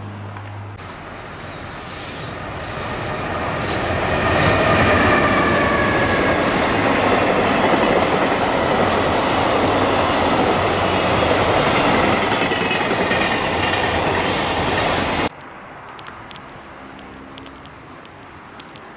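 Freight train passing close by, its wheels clattering over the rails, swelling over the first few seconds, with a faint whine sliding slowly down in pitch. The sound cuts off abruptly about 15 seconds in, leaving a much quieter background.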